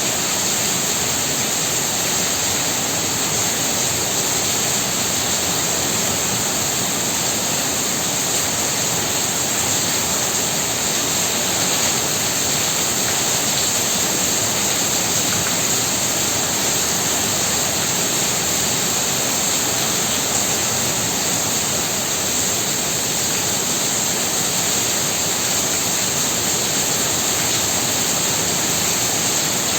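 Heavy rain pouring down steadily, a dense, even hiss of water with no breaks or single drops standing out.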